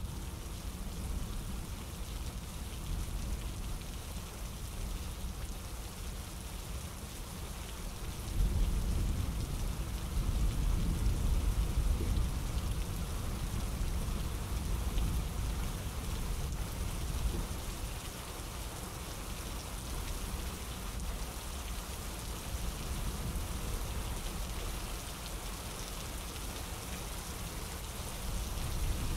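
Steady rain falling, an even hiss of drops. About eight seconds in, a heavier low rumble rises under it and holds for several seconds before easing back.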